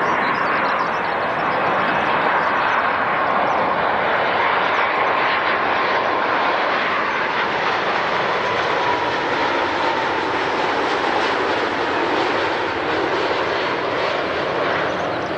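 Jet airliner engines passing, a steady loud rushing noise with a faint whine that slowly falls in pitch, easing slightly near the end.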